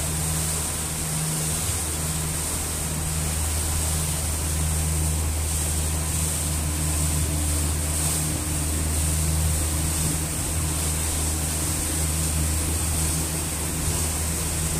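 Speedboat under way: a steady engine drone under an even rush of wind and water past the hull.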